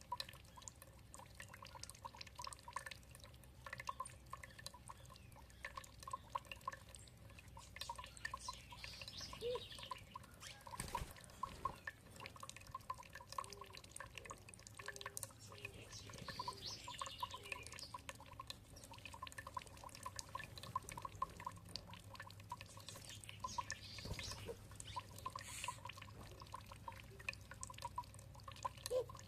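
Water trickling and dripping in a quick, uneven patter of small plinks, with birds chirping a few times in the background.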